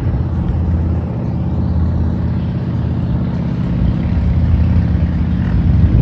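Wind buffeting the microphone: a loud, steady low rumble.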